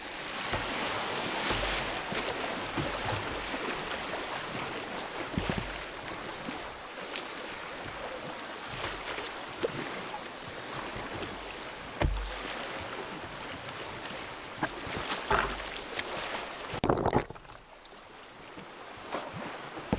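River water rushing and splashing over a shallow riffle around a kayak, with a few low thumps and a louder splash about 17 seconds in, after which the rush is quieter.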